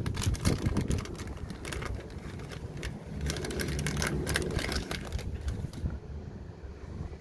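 Small handmade doll accessories and their packaging being handled close to the microphone: quick rustles and light clicks in clusters, over a low background rumble.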